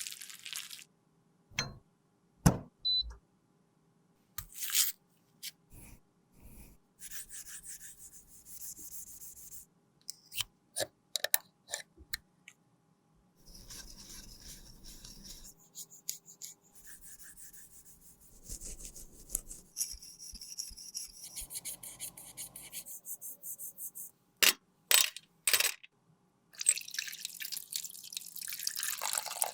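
Close-miked handling sounds from repairing a lipstick: a run of separate small clicks and taps, with stretches of rubbing and scraping in between. A steady rushing hiss starts near the end.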